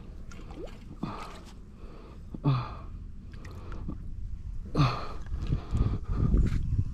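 A man's short gasps and grunts of effort, three of them, the pitch dropping in each, while he struggles to work a hook free; low rumbling handling noise builds near the end.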